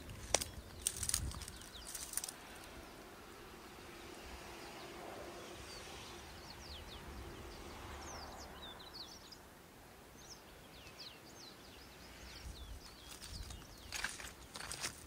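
A bird singing a string of quick, high chirps and thin sweeping notes, with a few sharp crackling noises near the start and again near the end.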